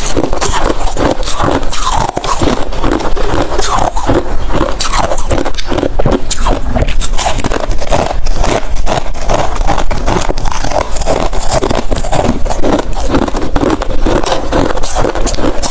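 Close-miked chewing of freezer ice: a dense, continuous run of loud crunches as the ice is bitten and ground between the teeth.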